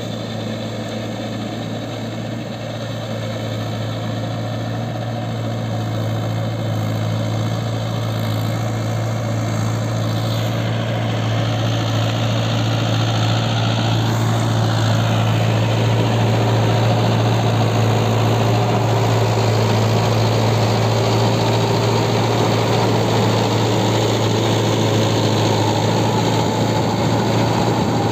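Mahindra Yuvo tractor's diesel engine running steadily under load, pulling a rotavator whose blades churn wet mud. It grows louder over the first half as the tractor comes closer.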